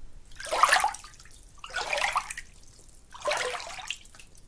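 Oars of a rowing boat dipping and pulling through water: a rhythmic swish and splash about every second and a half, three strokes with a fourth starting near the end.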